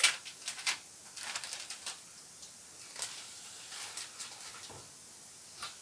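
Packaging being unwrapped and handled: irregular crinkling and rustling, with a sharp crackle at the start. It is dense for about two seconds, then thins out to a few soft rustles and one last crinkle near the end.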